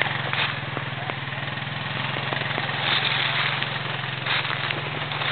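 ATV engine running steadily at low speed, pulling a deer carcass through the woods, with a few brief swells in the engine note.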